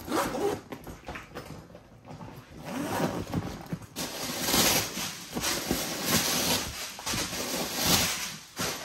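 Metal zipper of a canvas duffel bag being unzipped in a series of scratchy pulls, about one a second in the second half, mixed with the rustle of the bag being opened and handled.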